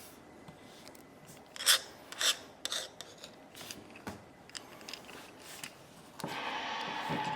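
Short rasping scrapes of a small tool working against a 6th-generation iPod nano's casing, three loud strokes close together and then fainter ones. Near the end a steady humming sound with a held tone sets in.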